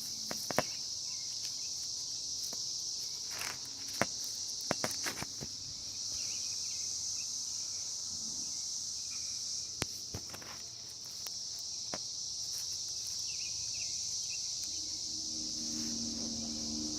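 Steady high-pitched chirring of insects, with a few short, sharp clicks and knocks in the first half, the loudest about 4 s in, and a low hum near the end.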